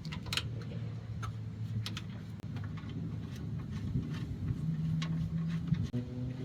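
Scattered light clicks and taps of tools and bolts as the grille's four mounting bolts are put back in, over a steady low engine rumble.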